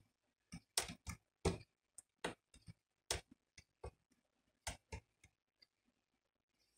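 A run of short, sharp clicks at uneven intervals, two or three a second, with a gap of about a second near the end.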